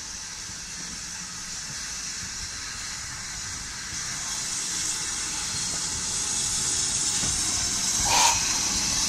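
GWR 56xx class 0-6-2 tank steam locomotive drifting past, its steam hissing and growing louder as it approaches. A short, louder sound comes about eight seconds in.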